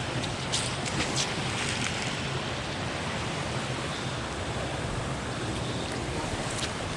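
Steady wind rumble on the microphone, with a few light clicks in the first second or so.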